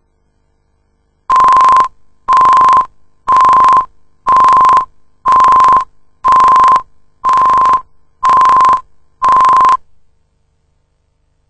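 Videotape countdown leader beeps: nine identical short, steady, high-pitched tone beeps, one a second, each about half a second long, starting about a second in.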